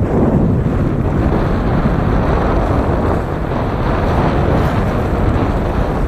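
Heavy wind noise on the microphone aboard a sailing yacht in strong gusts, with water rushing along the hull.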